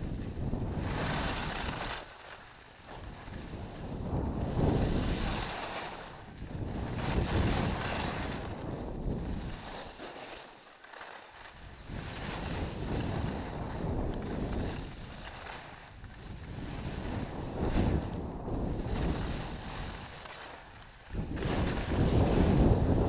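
Skis scraping and carving over hard-packed snow, with wind buffeting an action camera's microphone. The noise swells and fades every two to three seconds as the skier turns, and is loudest near the end.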